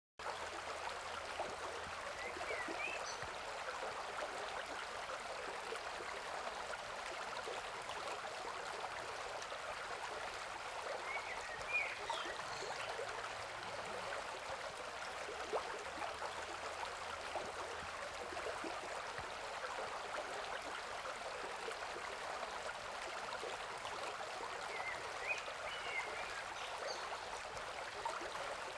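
A river running with a steady rush of water. Short bird chirps come three times: a few seconds in, around the middle, and near the end.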